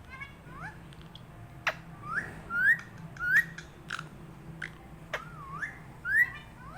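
Pet parrot whistling a run of short rising notes, one of them wavering, with sharp clicks scattered between the whistles.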